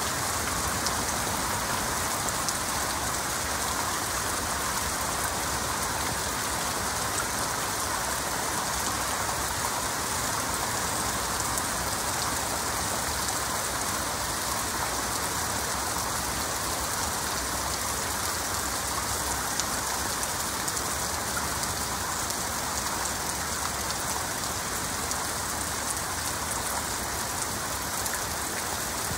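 Heavy rain falling steadily, a dense even hiss of drops with no thunder in it.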